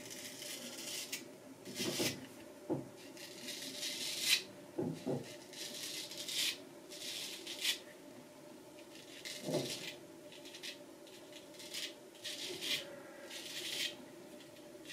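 A restored vintage Nashville Barber Supply Kaeser's No 402 straight razor scraping through lathered stubble on the neck in about a dozen short strokes, each a brief rasping hiss. The blade is freshly and keenly honed.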